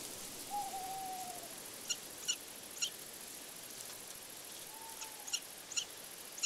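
An owl hooting twice: a drawn-out hoot about half a second in that falls slightly at the end, and a shorter one about five seconds in. Several short high chirps sound in between and near the end, over a steady faint night-time hiss.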